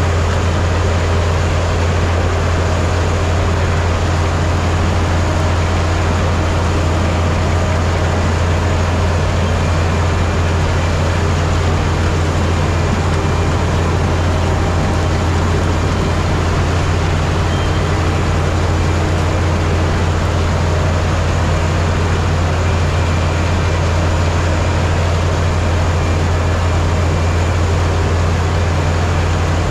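Ploeger self-propelled pea harvester running steadily, its diesel engine and machinery making an unchanging low drone.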